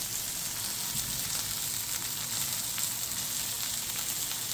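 Seasoned king salmon fillet sizzling steadily as it sears in olive oil and butter in a cast iron skillet on a gas burner at medium to medium-high heat, with a fine crackle in the hiss.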